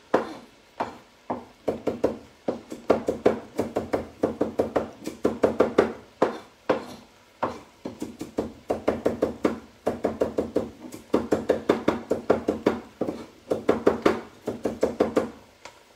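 Kitchen knife chopping a red chilli on a cutting board: fast runs of sharp strokes, about a second each, with short pauses between them.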